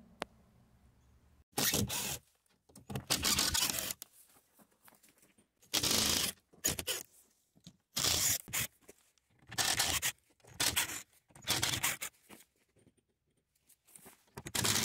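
Cordless drill/driver backing screws out of the OSB crate panels, in a series of short bursts about one every second or two, with pauses between screws.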